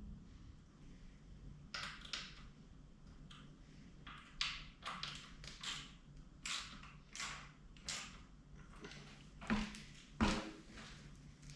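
Hands working on a mountain bike: a run of short clicks and scrapes, about one or two a second, then two louder knocks near the end.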